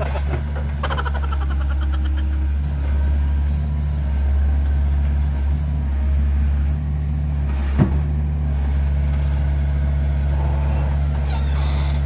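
Mini excavator's diesel engine running steadily under hydraulic load as the machine levers itself on its bucket to get a slipped-off track back on. There is a brief metallic rattle about a second in and a single sharp clank near eight seconds.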